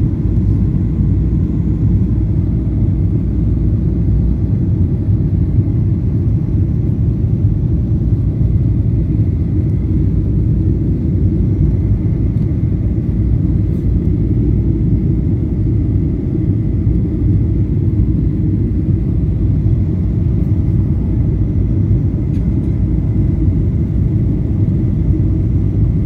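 Steady jet airliner cabin noise heard from a window seat of a Boeing 737 on approach with its flaps extended: a constant low rumble of engines and airflow, with a faint steady whine above it.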